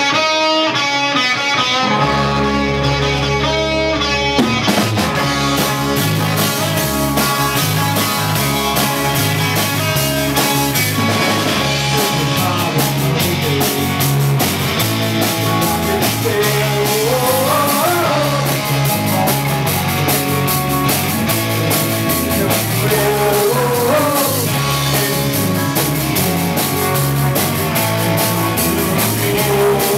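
A live rock band with electric guitars, bass and a drum kit. A guitar riff plays at first, the drums and bass come in about four seconds in, and a singer joins later on.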